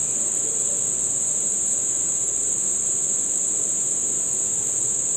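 A steady, unbroken high-pitched shrill drone that holds the same pitch and loudness all the way through.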